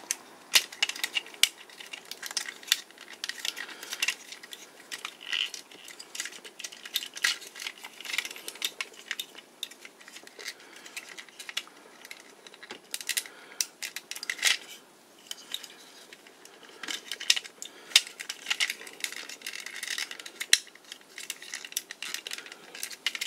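Hard plastic parts of a 1993 TOMY DX Gran Saurer toy robot clicking and clacking irregularly as it is handled, its chest latches worked and its stuck head pried at to pull it out.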